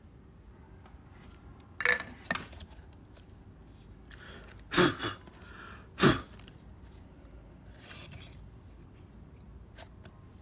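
Tools handled on a workbench: several sharp clicks and knocks as a soldering iron and metal tweezers are set down and picked up, the loudest about two seconds in and around five and six seconds in.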